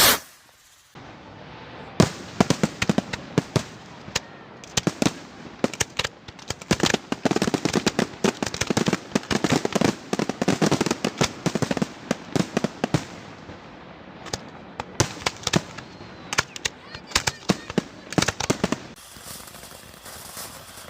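A long string of firecrackers going off: rapid, irregular cracks start about two seconds in and stop near the end.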